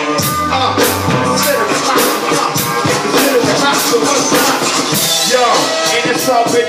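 Hip hop beat playing between rap verses, with a steady rhythm of sharp percussion ticks and a low bass note about half a second in.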